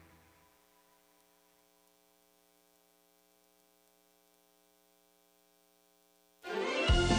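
A faint steady electrical hum in a near-silent pause after music fades out. About six seconds in, loud music starts abruptly with a steady low beat.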